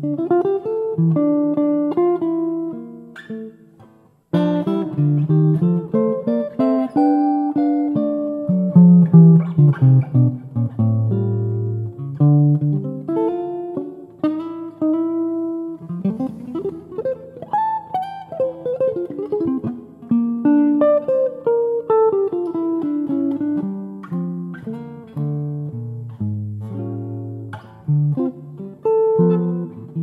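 Solo jazz guitar on an archtop guitar, melody lines and chords. The notes die away about four seconds in before the playing picks up again.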